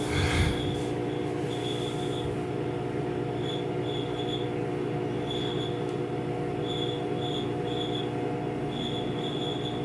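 Washing machine humming steadily while a thin high-pitched tone comes and goes in short spells; a brief knock sounds right at the start. The machine has a fault: the door stays locked and all its lights are on.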